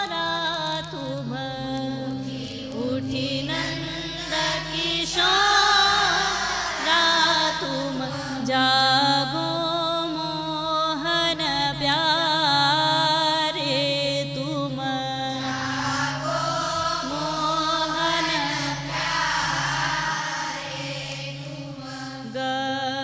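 A woman singing a devotional bhajan in a long, wordless, heavily ornamented melodic passage, her voice gliding and wavering in pitch over a steady, sustained low instrumental accompaniment.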